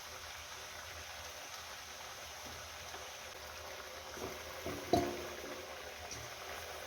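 A pot of food simmering with a steady bubbling hiss, and a single sharp clink about five seconds in.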